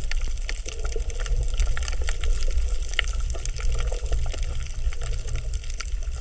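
Underwater coral reef sound: a dense scatter of sharp crackles and clicks, the 'michi-michi' sound the uploader takes for corals breathing, over a low steady rumble of moving water.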